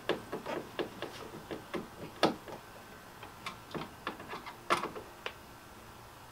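Hand screwdriver driving a screw through a kayak pad eye into the hull: a run of irregular clicks and ticks as the handle is turned and re-gripped, with two louder clicks about two seconds in and near five seconds, then it stops.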